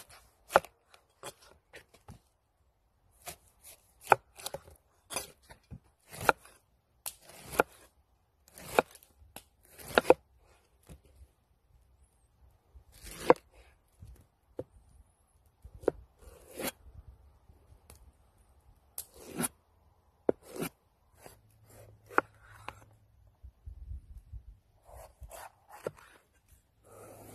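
Knife cutting through a whole pineapple and then a red bell pepper on a wooden cutting board: a long run of separate, sharp cutting strokes and blade knocks on the board, irregularly spaced.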